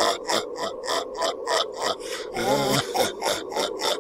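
A creature-like horror vocal effect: rapid rhythmic throaty pulses, about five a second, with a short wavering growl about two and a half seconds in, over a steady low hum.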